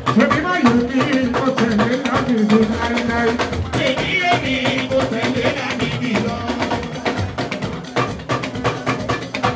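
Live fuji band music: a man singing lead into a microphone over busy drums and percussion.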